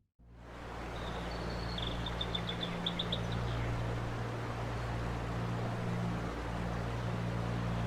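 Birds chirping in short quick runs over a steady background noise with a low hum.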